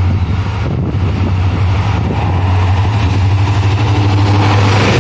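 WDP4D diesel-electric locomotive approaching at speed and drawing level, its engine drone growing steadily louder, with wheel-on-rail noise rising near the end.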